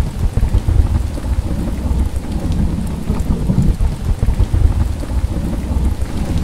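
Heavy rain pouring steadily, with deep rumbling thunder underneath.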